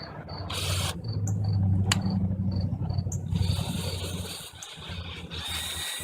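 Electric drill running, boring out a broken exhaust manifold bolt so the hole can be re-tapped. A steady motor hum gets louder about a second in, with a faint high whine rising slightly in pitch near the end. Crickets chirp steadily behind it.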